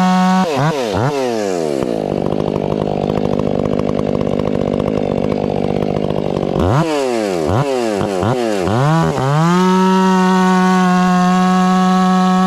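Stihl 500i fuel-injected two-stroke chainsaw held at full throttle, then dropping in pitch and running under load for about four seconds as it cuts a round off a tamarack log. After the cut it revs up and down a few times and settles back to a steady wide-open scream.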